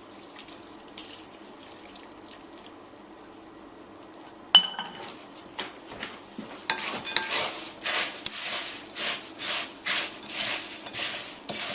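A sharp clink of metal on the bowl, then a spoon stirring a dry cereal mixture of rice bubbles coated in melted shortening in a mixing bowl: a rhythmic rustling scrape about two to three strokes a second, getting louder toward the end.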